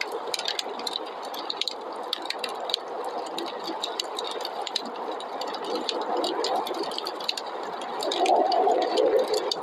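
Wood fire crackling, with sharp pops throughout, over the steady rush of snowstorm wind. Near the end the wind rises into a louder, wavering howl.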